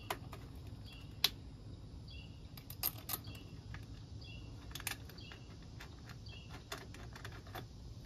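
Scattered light clicks and taps of small screws and metal clamps being fitted by hand around a golf cart's steering column to hold a turn-signal switch box.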